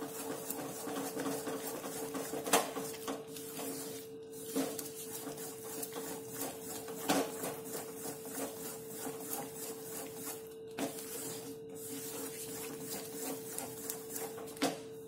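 Wooden spatula scraping and stirring a thick maida-and-sugar-syrup barfi mixture around a steel kadai, in quick irregular strokes with a few sharper knocks against the pan. A steady hum runs underneath.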